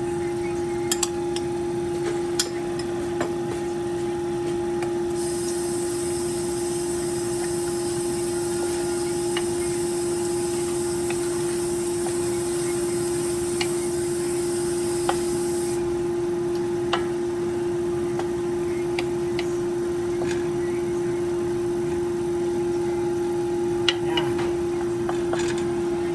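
Steady hum at a constant pitch over a soft hiss, with scattered light ticks and clicks, while a pot of menudo in tomato sauce is brought to the boil. A band of higher hiss comes in about five seconds in and stops about sixteen seconds in.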